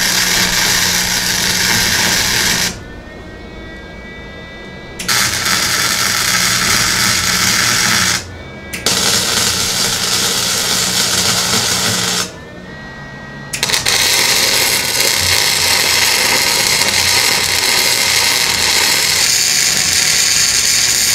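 Steel frame supports being arc welded to the frame: a loud, steady crackling hiss in four runs of a few seconds each, broken by short pauses where the welder stops and restarts.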